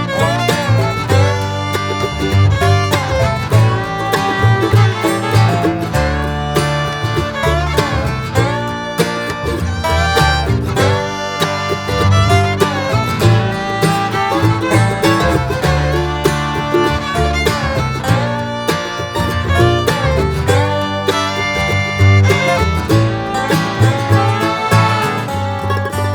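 Background music: an acoustic string tune in a bluegrass or country style, with fiddle and plucked guitar over a steady bass.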